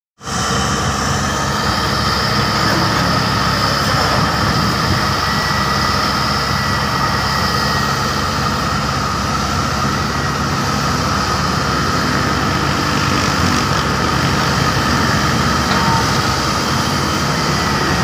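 Diesel engines of a Cat wheeled excavator and a Hyundai crawler excavator running steadily as they work a sand pile: a dense, even machine noise with a few thin steady whining tones above it.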